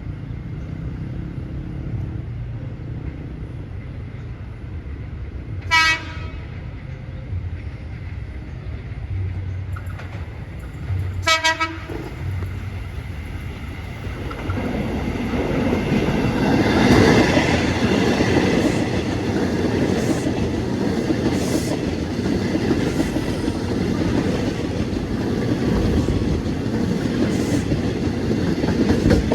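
An INKA-built KRL Commuter Line electric train sounding its horn in two short blasts, about six and eleven seconds in, then passing close by from about fifteen seconds on: a steady rush and rumble of wheels on rail with clicks over the rail joints.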